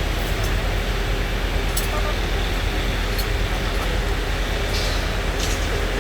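Diesel construction machinery running steadily with a deep, even rumble, with a few light clicks over it.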